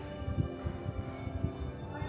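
Background music of steady, held tones, with a few soft low thumps underneath.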